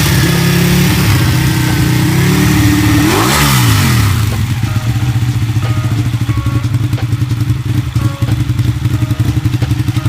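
Ducati 899 Panigale's Superquadro L-twin running just after a hard start, held up on the throttle. The revs waver, then sag sharply about three seconds in and pick back up. From about four seconds it settles into an idle with a rapid, uneven beat.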